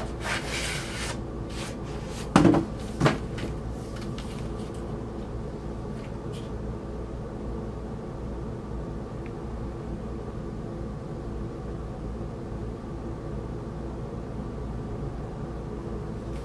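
Cardboard record mailer being handled as an LP is slid out: scraping and rustling, then two loud knocks about two and three seconds in. Afterwards only a steady low hum remains.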